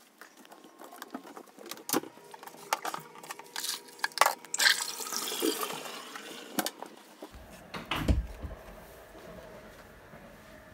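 Cat litter box being cleaned out, played back sped up five times: rapid clicks and rattles of scooped litter, with a rushing hiss in the middle. A dull thump about eight seconds in.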